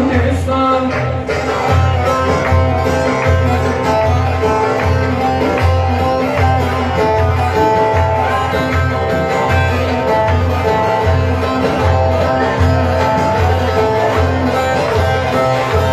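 Loud amplified dance music with a steady heavy bass beat, about two beats a second, under a held melody line.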